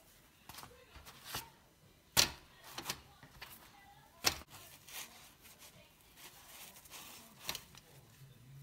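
Freshly cooked naan breads being handled and set down one on another in a stack on a wire cooling rack: a few soft slaps and taps, the loudest about two and four seconds in, with quiet rustling between. Near the end a naan is pulled apart.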